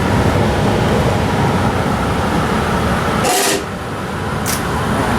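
Steady low rumble of running machinery, with a short hiss about three seconds in and a brief click a second later.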